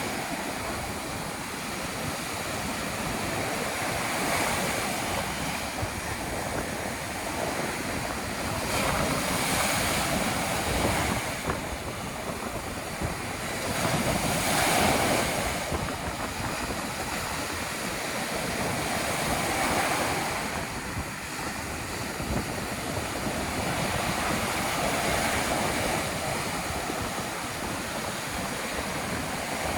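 Ocean surf breaking on a beach on a stormy day, a continuous wash that swells and eases every few seconds as waves come in. Wind blows throughout.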